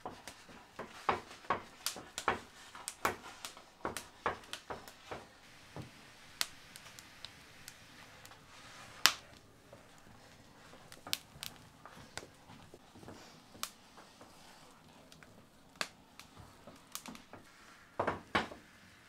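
A wooden stirring stick working thick dhido in a metal pot, knocking and scraping against the pot about twice a second for the first few seconds, then more sparsely. There is a single sharp knock about nine seconds in and a quick cluster of knocks near the end.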